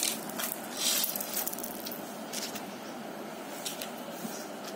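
A dried ridge gourd's papery shell crackling and rustling as it is broken open by hand, with its seeds spilling out and pattering onto a hard floor. The gourd is fully dried and holed, the stage at which its seeds are ready to save.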